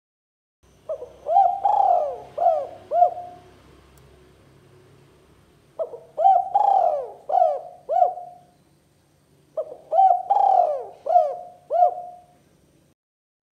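Spotted dove (tekukur) cooing. It gives three phrases of about five coos each, a few seconds apart.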